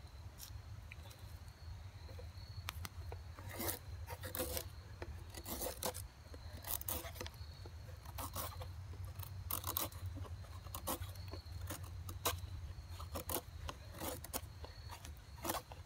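LT Wright Bushcrafter HC carbon-steel knife shaving long curls down a wooden stick, with repeated scraping strokes roughly one a second.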